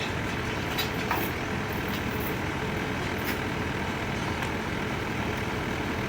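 Heavy diesel engine of construction equipment running steadily, with a few faint clicks over it.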